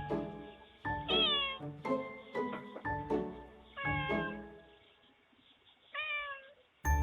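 Domestic cat meowing at a front door through a Ring video doorbell's microphone: three drawn-out meows about a second, four seconds and six seconds in, each bending in pitch. Background music with repeated, ringing notes plays along.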